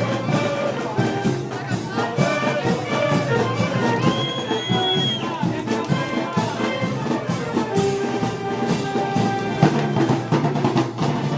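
A brass band with drums playing festival march music live, brass holding notes over a steady drum beat.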